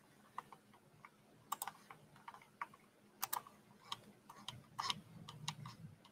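Irregular clicking of a computer keyboard and mouse, a few clicks at a time with short gaps between.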